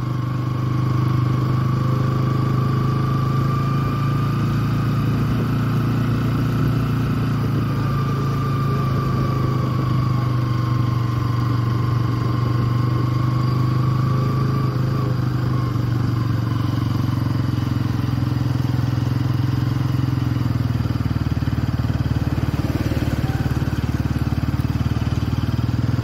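Motorcycle engine running steadily as the bike is ridden along, its note holding even throughout.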